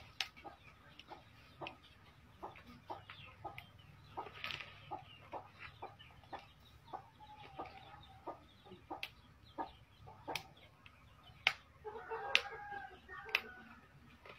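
Chickens clucking, with a louder run of calls about twelve seconds in, over a steady series of light clicks and taps about twice a second.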